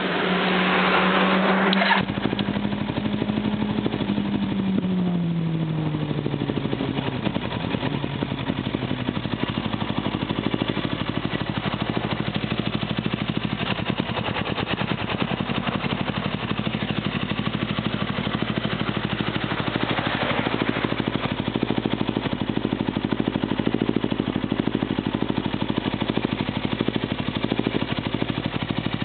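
Suzuki GS500E's parallel-twin engine running through a handmade Vick exhaust. It is held at raised revs, loudest in the first two seconds, then its pitch falls away between about four and six seconds in. From there it idles steadily for the rest, with a short rev rising near the end.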